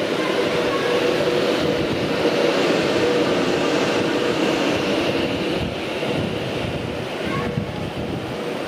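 Passenger train moving slowly through a station platform: a steady rumble of wheels and running gear with a continuous hum.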